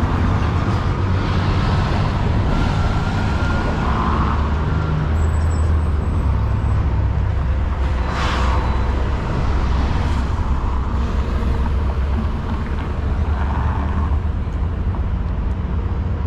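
City street traffic: a steady low engine rumble from passing and idling vehicles, with one brief hiss about eight seconds in.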